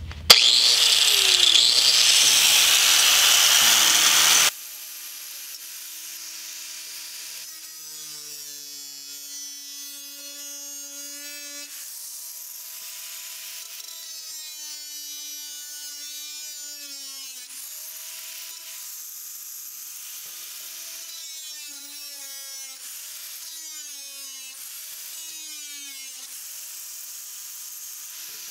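Cordless angle grinder grinding a rusted sheet-steel floor pan. It is loud for the first four seconds or so, then quieter, its whine dipping and recovering in pitch as the disc bites into the metal.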